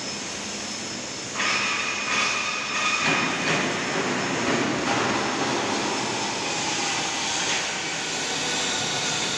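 Steady machinery noise echoing in a large metal fabrication hall. About a second and a half in it grows louder and a thin high whine sets in.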